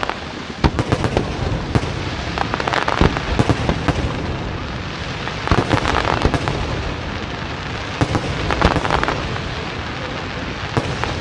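Fireworks display: aerial shells bursting in clusters of many sharp bangs every two to three seconds, over a continuous crackling hiss.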